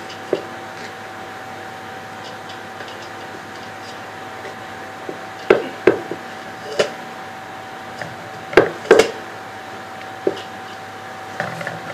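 A utensil knocks against a cooking pot about eight times, irregularly, as boiled rice is layered into it for biryani. A steady faint hum runs underneath.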